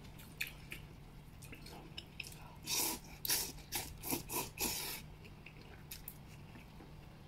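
A person slurping and chewing a mouthful of oil-splashed noodles (youpo mian), with a quick run of slurps from about three to five seconds in and faint mouth clicks before it.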